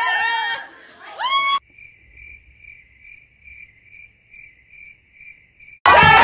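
A cricket chirping at a steady pace, about two and a half faint chirps a second, the comic 'crickets' effect over a silent, bored room. Women's shrieks and laughter cut off just before it, and loud party music with cheering bursts in suddenly near the end.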